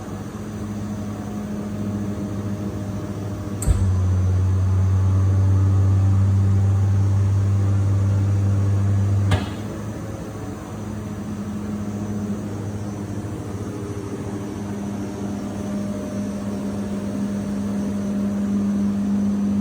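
Hitachi OSP-15VARN 15 kW screw air compressor with built-in dryer running with a steady hum. About four seconds in a sharp click brings in a louder, deeper hum, which drops back after another click about nine seconds in.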